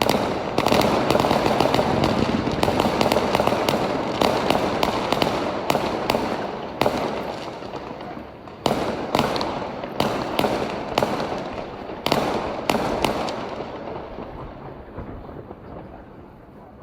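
Fireworks going off in a rapid barrage of bangs and crackling. Fresh volleys burst out about nine and about twelve seconds in, and the display dies away near the end.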